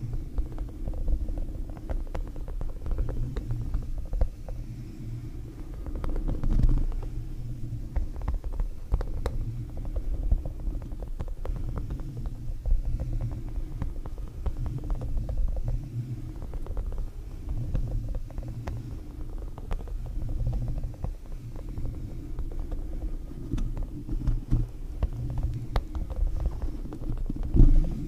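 Soft rubber spikes of a puffer ball brushed and swept over a Blue Yeti microphone's grille, close to the mic, giving a dense, uneven low rumbling rustle. Light clicks from fingernails tapping the grille are scattered through it.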